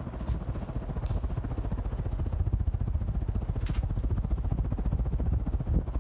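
Restored 1940 Hunter R-52 ceiling fan running at speed, its air stream buffeting the microphone with a rapid, steady pulsing rumble.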